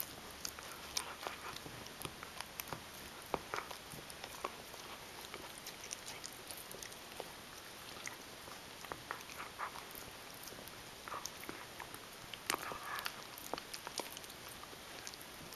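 Shetland sheepdog gnawing a hard chew bone: irregular crunches and clicks of teeth on the bone, with a few short wet licking sounds.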